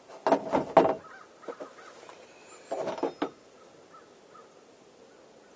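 Harsh bird cawing: a quick run of three calls near the start, then three more about two seconds later.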